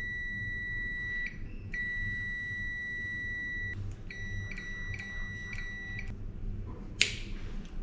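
Clamp meter's continuity buzzer beeping as its test leads touch the switch wires, a steady high beep that signals a complete circuit between the probed wires. It sounds in two long beeps of one to two seconds each, then a run of short broken beeps, and a sharp click comes near the end.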